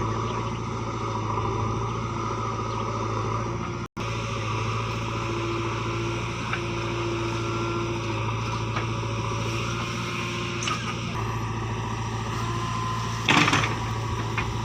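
JCB 3DX backhoe loader's diesel engine running steadily at work, with one loud knock near the end.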